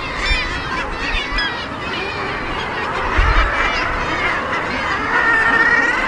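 Seabird colony chorus: many birds calling at once, their calls overlapping without a break. A short low rumble comes about three seconds in.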